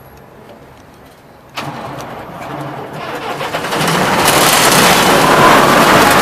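Sullivan 375 CFM portable air compressor's diesel engine starting about a second and a half in, then picking up speed and getting louder over the next couple of seconds until it settles into a steady loud run.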